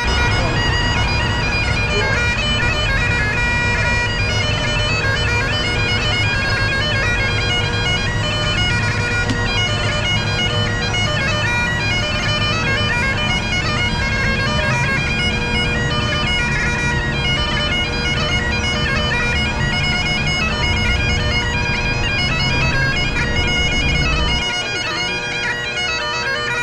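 Bagpipe music: a melody played over steady drones, with a deep accompaniment underneath that stops about 24 seconds in.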